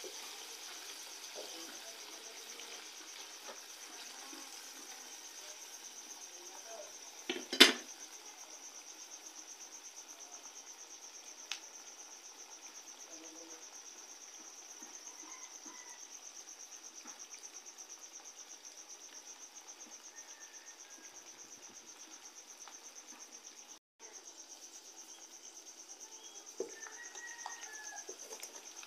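Crickets trilling steadily in a high, continuous, fast-pulsing chirr, over the faint sizzle of pork curry frying in a steel pan on a wood fire. A single loud metal clank about seven and a half seconds in.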